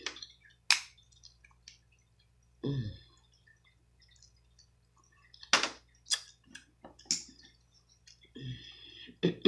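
Close-miked eating of a boiled blue crab claw: scattered sharp clicks and cracks of shell being broken and picked apart, with wet mouth sounds, the sharpest about half a second in and a cluster around five to seven seconds in.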